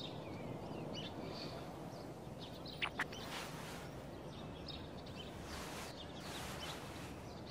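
Steady background hiss of outdoor ambience with faint, scattered bird chirps, a couple of sharper chirps about three seconds in.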